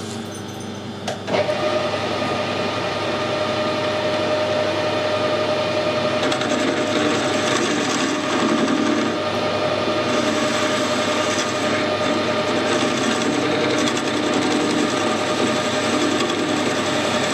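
Metal lathe starting up about a second in and running steadily while a turning tool cuts down the end of a hardened steel drill spindle, taking it back to clean metal ready for weld build-up.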